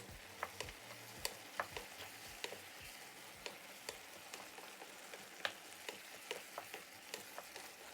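Shrimp and peppers sautéing in oil in a frying pan: a faint, steady sizzle with scattered crackling pops.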